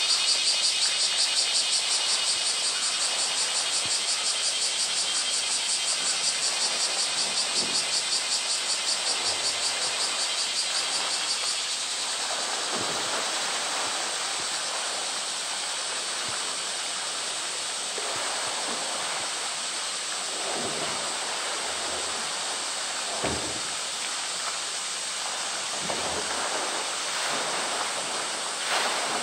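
A polar bear splashes in pool water while it wrestles a plastic drum, with several short dull knocks of the drum. Over the first dozen seconds a high buzz, pulsing several times a second, sits over the water and fades away.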